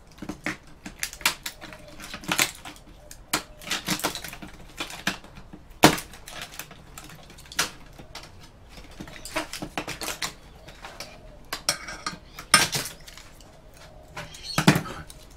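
Irregular metallic clicks, clinks and knocks of thin sheet-steel panels and small circuit boards being pried apart and handled, the sharpest knock about halfway through.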